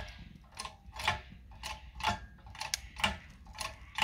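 Engine-lifting gear being worked in repeated strokes as the engine is hoisted on a strap: a mechanical ratcheting click-creak, about two a second, slightly uneven.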